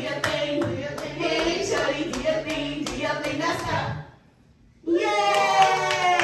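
Rhythmic hand clapping at about three claps a second under group singing. A brief pause comes about four seconds in, then a long held sung note with the clapping going on.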